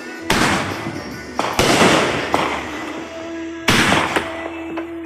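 Aerial fireworks going off: several loud bangs, roughly one a second, each trailing off in a crackling hiss.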